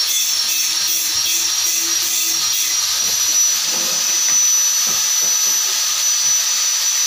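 Woodworking power machine running steadily without cutting: an even loud hiss with a constant high-pitched whine.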